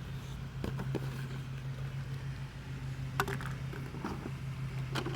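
A steady low hum with a few scattered short clicks and knocks, like handling noise.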